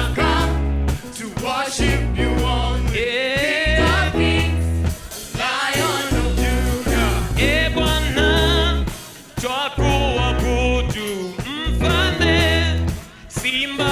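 Christian worship song: voices singing over a band with strong, steady bass notes.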